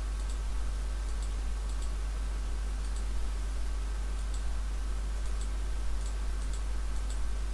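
Computer mouse clicking: about ten short, light clicks at uneven intervals, over a steady low electrical hum and faint hiss from the recording.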